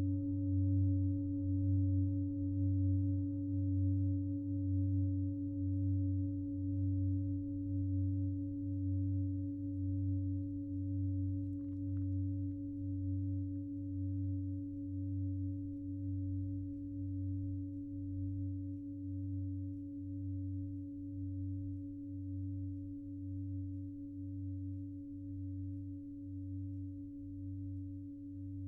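Singing bowl ringing with one long held tone and its overtones, slowly fading, over a low hum that pulses about once a second. A faint tap about twelve seconds in.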